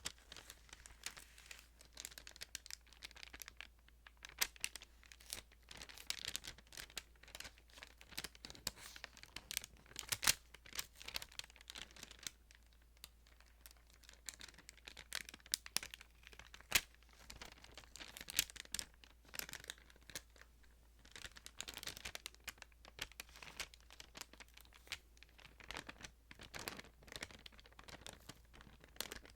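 Thin Bible pages being handled close to the microphone: an irregular run of crinkling and rustling paper with many sharp little ticks.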